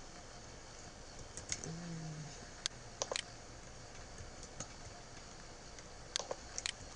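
Scattered computer mouse and keyboard clicks, about eight single sharp clicks spread unevenly over faint background hiss.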